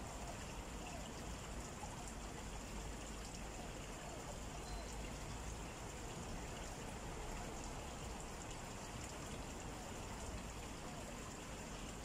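Steady outdoor ambient noise: an even hiss with a low rumble underneath and no distinct events.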